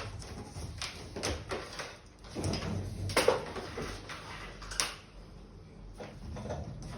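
Parts of a vacuum cleaner's casing being handled and fitted: a string of irregular clicks, knocks and scrapes. The loudest knocks come about three seconds in and again near five seconds.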